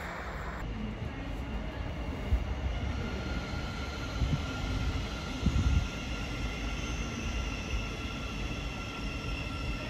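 Electric multiple unit giving a steady whine of several high tones over a low rumble, with a few low thumps about two, four and five and a half seconds in. A brief rush of noise cuts off about half a second in.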